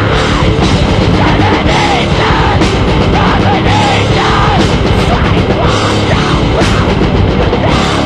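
Loud hardcore punk band recording: distorted electric guitars and fast drumming with steady cymbal and snare hits.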